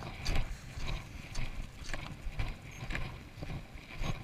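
Footsteps crunching on loose gravel and shell, a few irregular steps every second.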